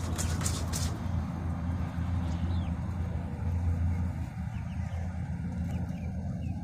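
Steady low engine-like rumble, with a quick run of sharp rattling clicks in the first second, likely the hanging food container being shaken by the goose, and a few faint high chirps later.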